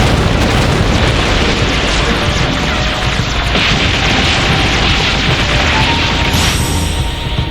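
Cartoon fight sound effects: continuous rumbling booms and blasts over music, with a brighter hiss in the middle and a sharp high sweep near the end.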